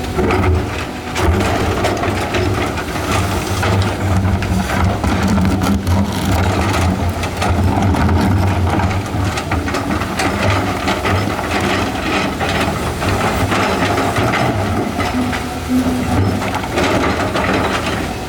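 Excavator's diesel engine running steadily under load, with rocks grinding, scraping and knocking together in many short cracks.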